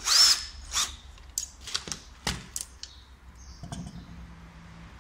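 A cordless drill-driver runs briefly at the start, undoing a fitting on a turbocharger. A run of sharp metallic clicks and knocks follows as the tool and loose parts are handled and set down.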